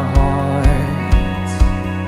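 Worship band music in an instrumental passage: sustained chords over a steady kick-drum beat, about two beats a second.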